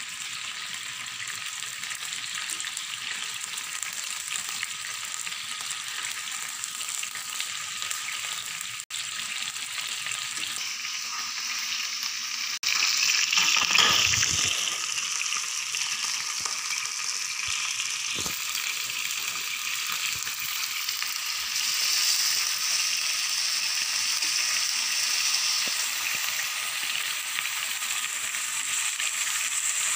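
Marinated beef tapa sizzling and frying in oil in a pan, a steady hiss. About halfway through, as more of the meat goes into the hot pan, there is a brief louder burst, and the sizzle stays louder afterwards.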